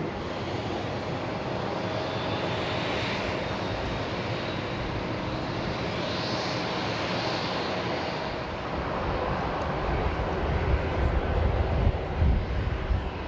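Airliner jet engines running: a steady rush with a faint high whine that rises and falls about six seconds in. In the last few seconds a heavier, uneven low rumble builds.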